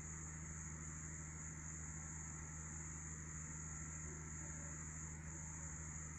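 A steady high-pitched trill held on one note, over a low steady hum.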